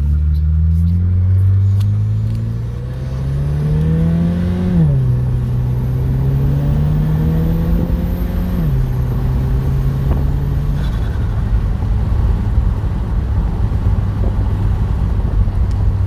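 2012 Buick Regal GS's turbocharged 2.0-litre four-cylinder engine accelerating through the gears: its pitch climbs steadily, drops sharply at an upshift about five seconds in and again near nine seconds, then holds steady before settling into a low road rumble. A faint high whistle rides over the engine during the middle pull.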